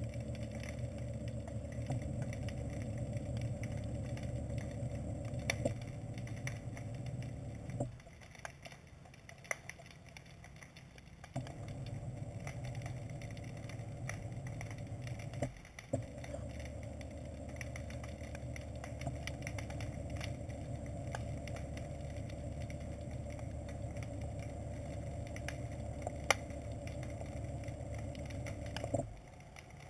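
Small ROV's thruster motors running with a steady hum and high whine, heard underwater through the camera. They cut out about 8 seconds in, start again a few seconds later, drop out for a moment, then stop near the end. Scattered faint clicks.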